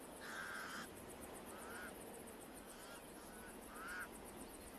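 Pied crows calling: one longer call at the start, then several short calls that rise in pitch, the loudest about four seconds in.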